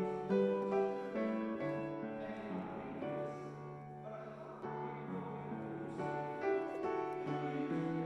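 Soft background music led by a piano, one note or chord after another.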